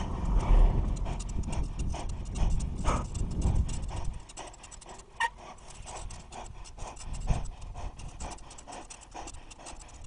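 Bicycle rattling and clicking steadily as it is ridden along a paved lane, with wind rumbling on the microphone for the first four seconds, then quieter. A short sharp click with a brief high ring about five seconds in.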